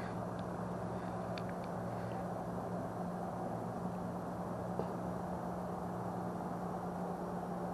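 A steady low hum and rumble, with a few faint clicks.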